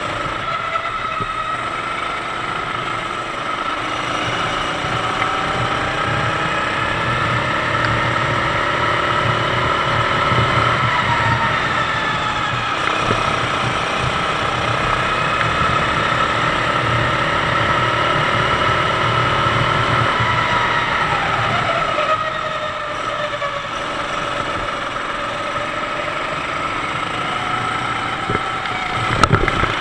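Sodi kart's 390cc four-stroke engine running hard at racing speed, heard onboard along with wind and road rush. About two-thirds of the way through the revs drop, then climb steadily again.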